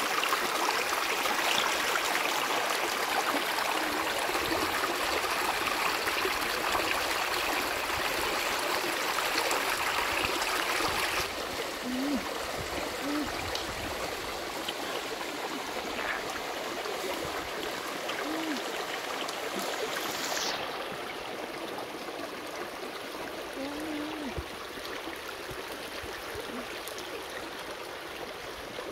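Stream water running over rock, a steady rushing. It steps down in loudness about eleven seconds in and again about twenty seconds in.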